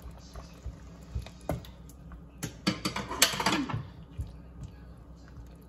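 Silicone spatula tapping and scraping against a nonstick pan as sliced shiitake mushrooms are pushed into place in the braising liquid: scattered light clicks, with a denser run of them in the middle.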